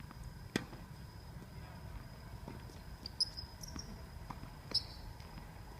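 A few scattered sharp knocks, the loudest about three and nearly five seconds in, over a steady faint high-pitched tone and low background hum.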